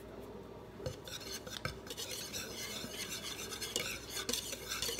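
Wire whisk stirring a dry flour mix for corn dog batter in a mixing bowl, its wires scratching and ticking quickly against the bowl; the whisking picks up about a second in.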